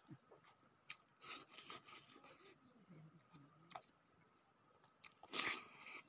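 Faint eating noises: fingers working rice on a plate and soft chewing of a piece of meat, with scattered small clicks. A brief louder rush of noise comes about five and a half seconds in.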